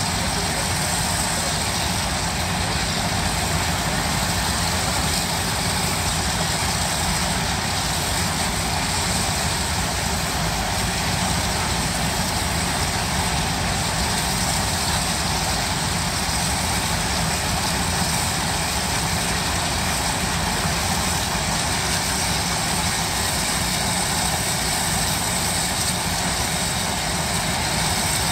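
Steam shovels running for a spark show, a steady, unbroken rush of steam and exhaust noise with a low rumble underneath as they throw showers of sparks from their stacks.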